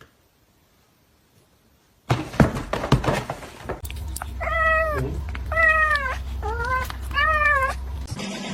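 A domestic cat meowing four times in a row, each meow rising and then falling in pitch. Before the meows there are some knocks and handling noise.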